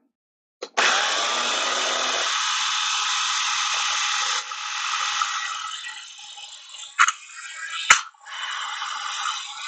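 Electric mini food processor running as it kneads soft flour-and-milk dough: the motor runs steadily for about three and a half seconds, then more roughly and unevenly as it works the dough, with two sharp knocks about seven and eight seconds in, then steadily again near the end.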